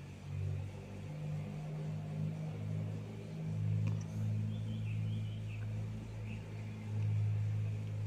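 Panasonic F-EY1511 60-inch industrial ceiling fan running: a low motor hum that swells and fades every couple of seconds.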